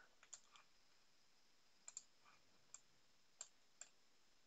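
Computer mouse buttons clicking faintly, about seven short clicks at irregular intervals, some in quick pairs, as the 3D view is dragged and rotated.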